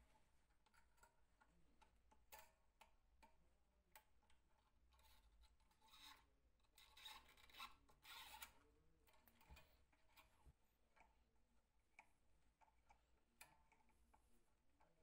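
Faint rubbing and scraping with scattered light clicks, from hand work on the mandolin being restored; the scraping is strongest about six to eight seconds in.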